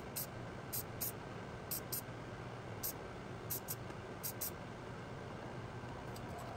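Aerosol can of Rust-Oleum silver metallic spray paint fired in short bursts: about ten quick hisses at irregular spacing, over a steady low hum.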